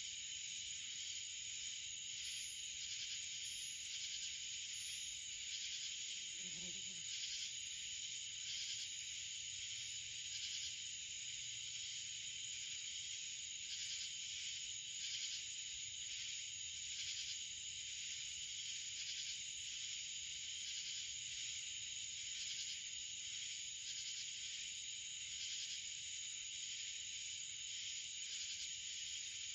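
Steady chorus of insects, a dense high-pitched buzzing drone with a faint pulse to it.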